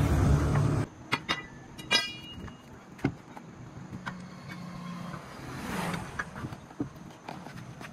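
A vehicle engine's low steady drone that cuts off suddenly about a second in. Then scattered sharp metal clinks and a short fast rattle as a wheel spanner and its long steel bar work the nuts of a truck wheel.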